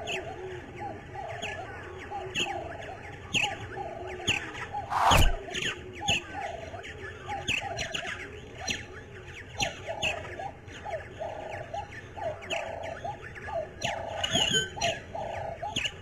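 Birds calling in a busy chorus: rapid short, falling chirps over lower repeated calls. A single loud knock comes about five seconds in.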